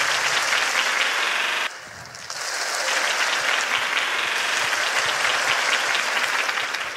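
A large theatre audience applauding on cue in a rehearsed clap led by a performer's hand signals. The applause cuts off abruptly under two seconds in, swells back about half a second later, and eases off a little near the end.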